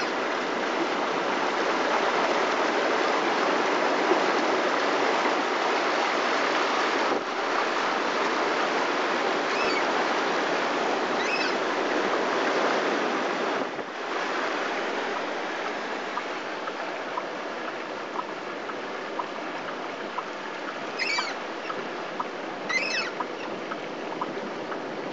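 Storm surf breaking and washing over the beach in a steady rush of water. It drops to a lower, steadier rush about halfway through, and a few short, high squeaks come near the end.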